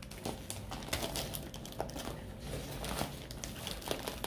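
Gift-wrapping paper crinkling and rustling in short, irregular bursts as hands pull and handle small wrapped gifts.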